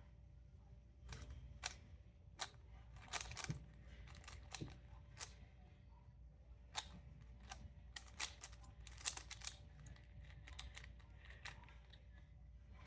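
Speed cube being turned fast by hand: irregular plastic clicks and clacks of the layers snapping round, some single and some in quick runs of several.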